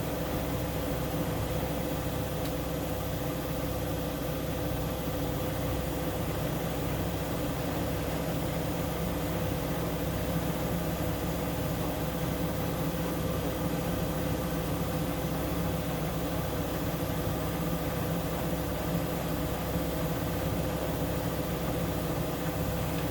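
Siemens Siwamat IQ 716 front-loading washing machine running with a steady, unchanging mechanical hum and a constant mid-pitched tone.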